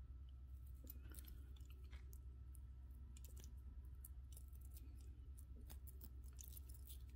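Faint, irregular small clicks and clinks of thin metal chain necklaces rubbing and knocking together as a tangle is picked apart by hand, over a low steady hum.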